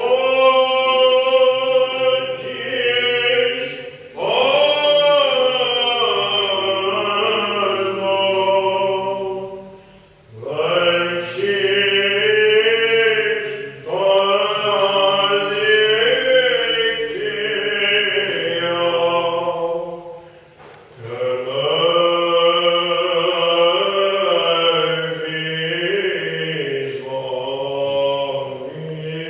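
Byzantine chant, Greek Orthodox church singing, in long ornamented phrases broken by a few short pauses for breath.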